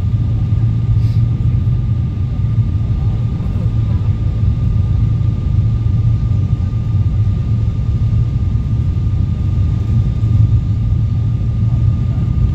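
Steady cabin noise of a jet airliner on approach: a loud, even low rumble of engines and airflow, with a thin steady high tone above it.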